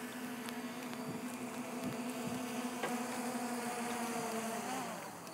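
Multirotor camera drone's propellers buzzing with a steady hum as it lands; the motors cut out near the end.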